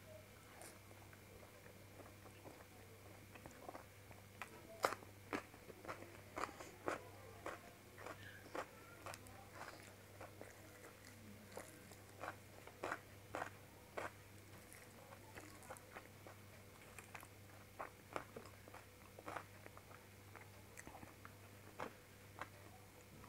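Close-up eating sounds of someone chewing bhatura and shahi paneer with rice: a run of short, sharp mouth clicks, most frequent in the middle stretch, over a faint steady hum.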